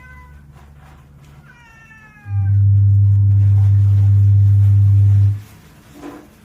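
A domestic cat meowing twice, short calls that fall slightly in pitch. Between about two and five seconds in, a loud low steady hum starts and stops abruptly.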